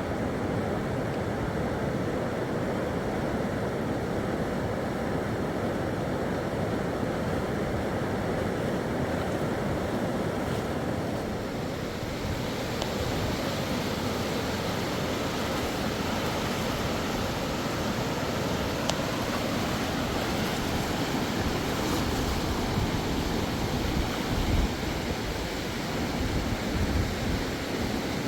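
Steady rushing of river water, an even noise, with a few low thuds in the last few seconds.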